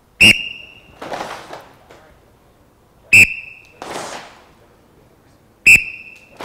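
Three short, loud blasts of a whistle about two and a half to three seconds apart, each a single high pitch with a brief ringing tail. Each blast is followed about three-quarters of a second later by a short clatter of many fighting sticks striking and blocking at once, as the class answers the signal.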